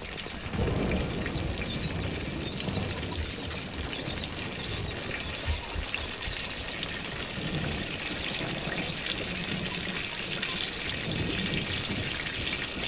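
Food frying in a wok of hot oil, a steady sizzle that grows brighter toward the end, with heavy rain in the background.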